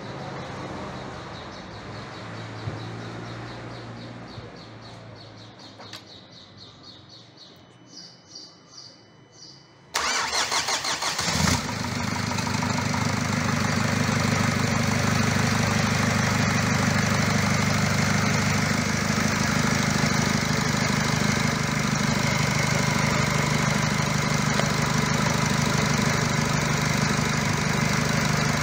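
Nissan Qashqai 2.0 dCi diesel engine cranked by the starter about ten seconds in, catching after a second and a half, then idling steadily.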